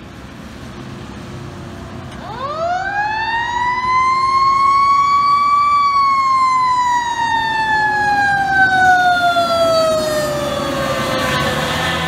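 Fire engine siren winding up once from a low pitch to a high wail over about three seconds, then slowly falling for about six seconds as the truck approaches, over a steady rumble of traffic. Near the end a second, harsher sound with many tones joins in.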